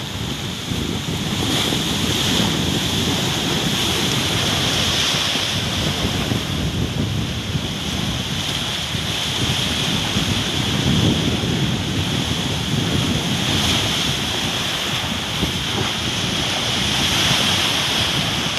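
Heavy surf breaking and washing in continuously, surging in waves of loudness, with strong wind blowing over the microphone.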